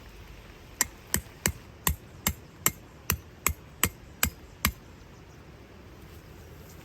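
Steady hammering: eleven sharp, evenly paced blows, about three a second, that stop after a few seconds.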